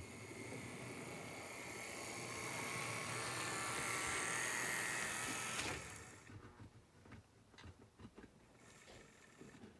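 HO scale model train running past, its motor and wheels whirring louder over about five seconds, then dropping away suddenly; faint clicking follows.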